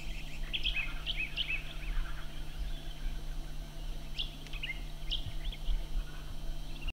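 Small birds chirping and calling in short, quick notes, in bunches, over a steady low hum.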